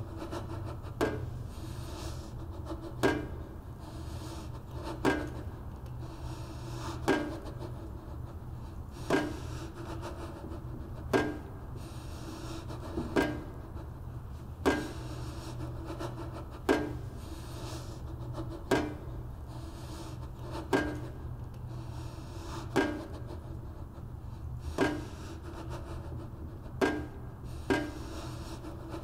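A short creak repeats about every two seconds over a low, steady hum.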